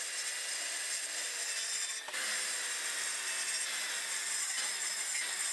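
A saw cutting into a wooden beam, a steady noise with a brief break about two seconds in.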